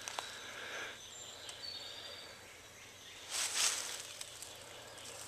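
Quiet woodland background with a short, thin bird note, then a brief rustle of dry leaves underfoot a little past the middle.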